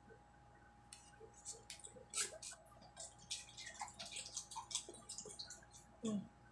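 Faint, rapid, crisp crackling and clicking close to the microphone as a Jollibee fried peach mango pie and its paper sleeve are handled and eaten.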